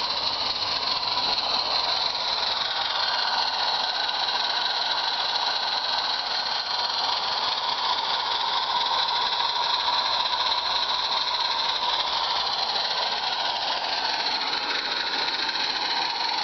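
Small 16mm-scale live-steam garden railway locomotive running with its train of wagons: a steady hiss of steam with no clear beat.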